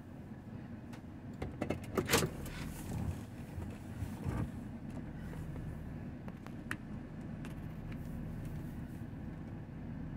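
A vehicle engine idling with a steady low rumble, heard from inside a car. A cluster of knocks and clicks comes about two seconds in, another knock about four seconds in, and a single sharp click later.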